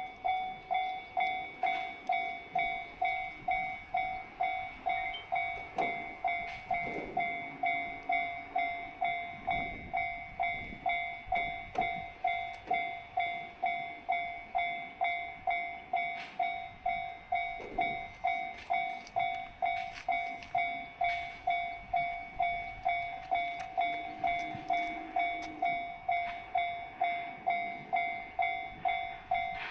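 Japanese railway level-crossing warning bell ringing steadily, a repeated 'kan-kan' strike at about 1.7 a second: the crossing is closed for an approaching train.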